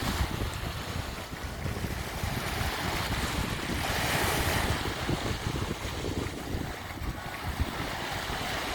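Sea waves breaking and washing up a beach, one wave swelling to a peak about four seconds in. Wind buffets the microphone with a low rumble.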